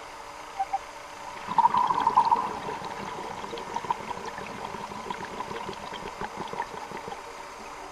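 Underwater sound of a scuba diver's exhaled bubbles, gurgling out of the regulator about a second and a half in, then trailing off into a steady crackle. A faint steady tone runs underneath.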